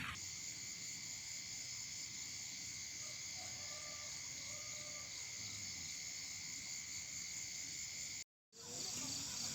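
Steady chorus of crickets and other insects, a continuous high trill, cut off by a brief dropout near the end.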